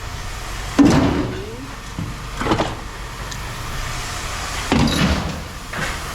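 Scrap metal being handled: four knocks and clanks, the loudest about a second in, followed by a short rising squeak, over a low steady hum.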